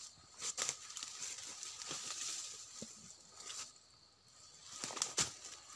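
Footsteps crunching and rustling through leaf litter and undergrowth while climbing a steep, slippery slope, with several sharp cracks scattered through it.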